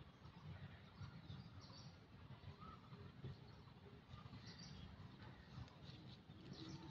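Near silence: faint outdoor ambience with a low rumble, and a few faint bird chirps now and then.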